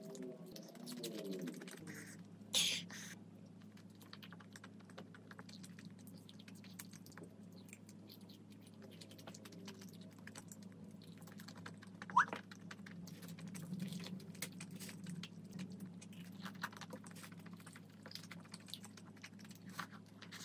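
Close-miked chewing of a breaded red-bean croquette with whipped cream: many small soft clicks and crackles of mouth and crust, over a faint steady hum. A louder rustling burst comes about two and a half seconds in.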